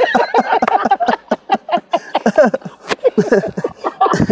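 Several men laughing heartily together, a string of short repeated bursts of laughter.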